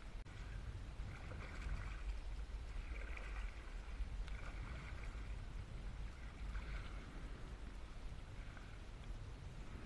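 Water lapping against the hull of a drifting canoe, over a steady low rumble.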